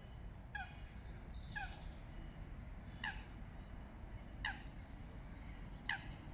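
A bird calling over and over, each call short and falling in pitch, about one every one and a half seconds. Brief high twittering from small birds comes in about half a second in, over a low background rumble.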